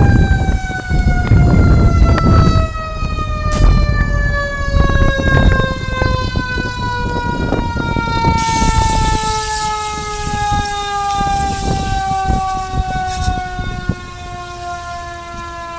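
Fire engine siren winding down in one long wail that falls slowly in pitch, with irregular thumps and rumble underneath. A hiss joins about halfway through.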